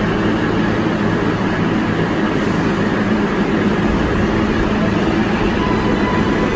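New York City subway 7-line train noise at the platform: a loud, steady rumble, with a faint high tone coming in near the end.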